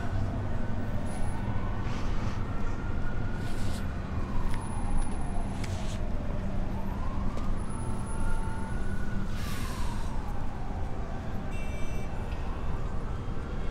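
Emergency-vehicle siren slowly wailing up and down, about two full rise-and-fall cycles of some six seconds each, over a steady low rumble of city traffic.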